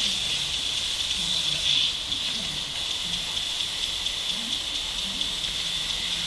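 Garden-hose sprinkler spraying a fine mist: a steady hiss that swells briefly about two seconds in.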